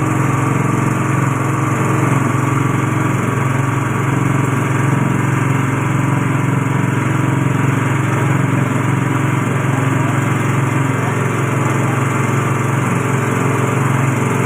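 A coconut-milk pressing machine's motor running steadily at speed, a constant drone that does not change.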